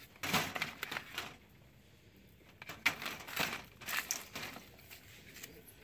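Small packaged cosmetics being handled and shuffled in a wire clearance bin: plastic tubes and small cardboard boxes rustle and clatter against each other and the wire in two bouts, one starting just after the start and another from about two and a half seconds in.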